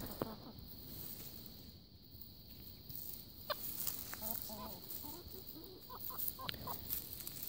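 Chickens clucking quietly in short, scattered clucks, mostly in the second half, with one sharp click about three and a half seconds in.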